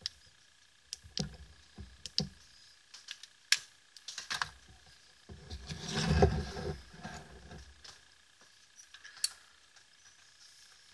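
Sharp clicks of a BLF Q8 flashlight's button switch as it is switched on and off, mixed with handling knocks against a wooden surface. A longer stretch of handling noise comes about halfway through.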